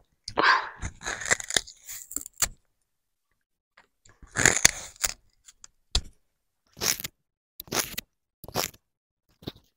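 Sugarcane being peeled with the teeth and chewed: the hard rind bitten and torn off in strips, a run of short crunches and tears with a pause of a second or two partway through.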